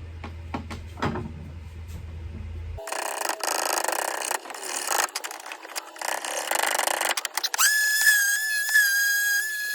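Woodworking tool noise on a wooden axe handle being shaped to fit the head. First a faint steady hum, then from about three seconds in a stretch of scratchy scraping strokes on the wood, and near the end a small power tool starting up with a steady high whine.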